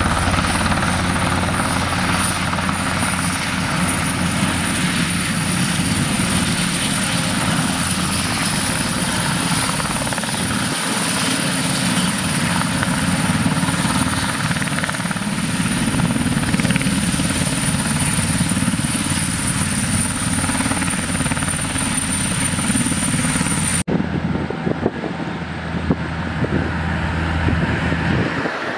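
Super Puma twin-turbine helicopter hovering close by: a steady high turbine whine over the low, beating rotor noise. It cuts off abruptly near the end, leaving quieter, lower engine noise.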